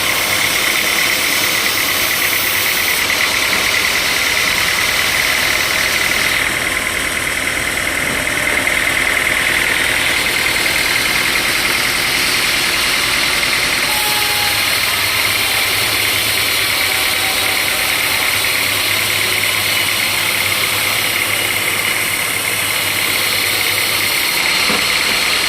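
Sawmill machinery running steadily, with a constant high whine over a low hum.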